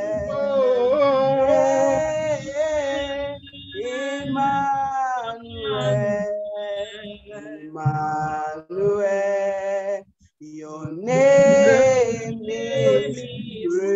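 A woman singing a worship song solo and unaccompanied over a video call, in long held notes with phrases broken by short breaths.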